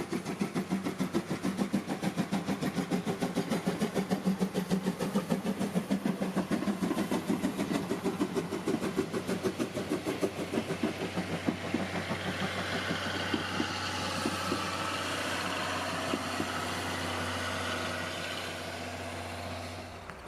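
C11 steam tank locomotive working a train past, its exhaust beating in rapid, even chuffs. After about twelve seconds the chuffs fade and a steady rumble of the passing carriages takes over, then cuts off suddenly.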